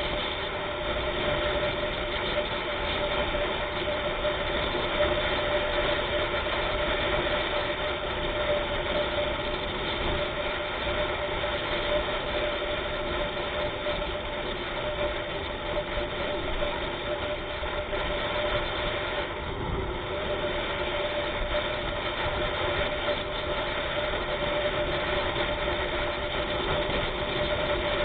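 A vehicle engine running steadily, with a constant hum and road noise and no change in pitch.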